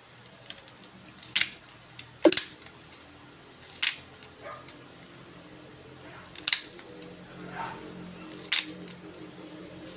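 Popsicle-stick hidden blade mechanism snapping out and back, with about seven sharp wooden clacks at uneven gaps, the loudest in the first few seconds.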